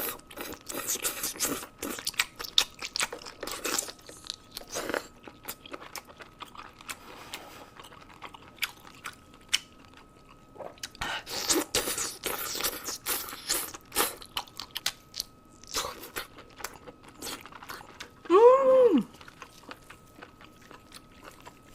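Close-up eating: crunchy bites and chewing come in bouts of sharp crackles with quieter pauses between them. Near the end there is a short voiced hum that rises and falls in pitch, the loudest sound in the stretch.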